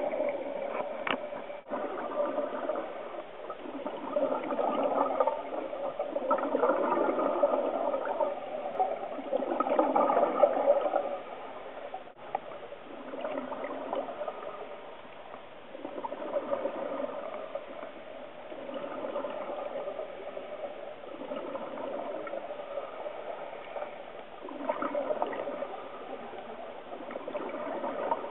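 Scuba diving underwater: exhaled bubbles from a regulator gurgling and rushing in irregular bursts. They are loudest from a few seconds in to about eleven seconds, and again near the end.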